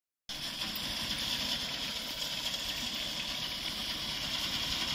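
Tractor engine running steadily, with a steady high hiss over it.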